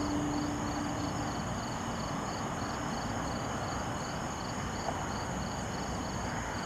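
Night insects chirping in a steady rhythm, about three pulses a second, over a continuous higher-pitched buzz and a low background rumble. A faint low hum fades out about a second in.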